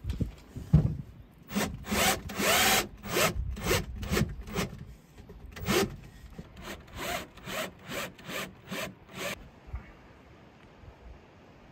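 Cordless drill driving screws into a plywood board in a string of short bursts, its motor pitch rising as it spins up on some of them. The bursts stop about nine seconds in.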